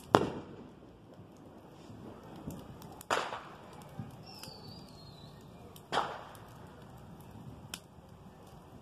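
Wood fire crackling in a fire pit, with faint scattered pops and three loud sharp bangs about three seconds apart, each trailing off with an echo.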